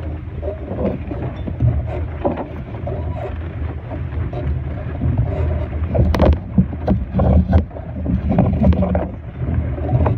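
Wind rumbling on the microphone and water washing against a Laser sailing dinghy under way, with several sharp knocks and splashes between about six and eight seconds in.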